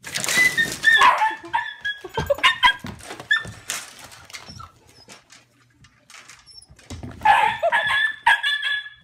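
A dog barking and yelping in short, pitched calls: a burst at the start and another about seven seconds in, with a few scattered calls between.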